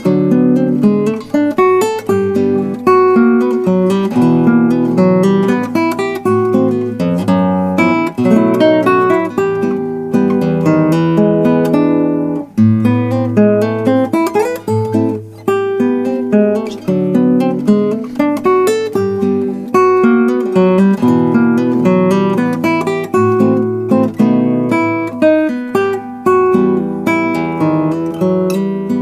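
Background music on acoustic guitar: a continuous run of plucked notes and strummed chords, each note ringing and fading.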